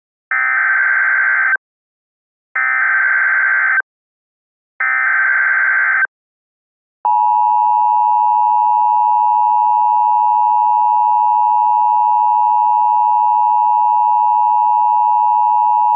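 Emergency Alert System tones: three short bursts of SAME header data tones, each a little over a second long, then, about seven seconds in, the long steady two-tone attention signal. Together they mark the start of a new emergency alert broadcast.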